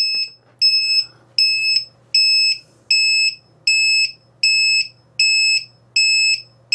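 FMS LiPo battery voltage checker's buzzer sounding its low-voltage alarm: a steady string of identical high-pitched electronic beeps, each about half a second long, roughly four every three seconds. It means a cell has dropped below the alarm's 3.8 V setting, and it keeps beeping until the pack's voltage recovers.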